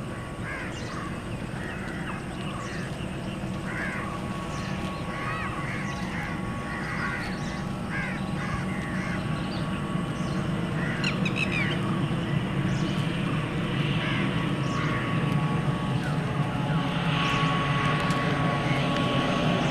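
Steady drone of an ATR72-600 turboprop with Pratt & Whitney PW127M engines, growing slowly louder as the aircraft approaches. Many short bird calls sound over it in the first part.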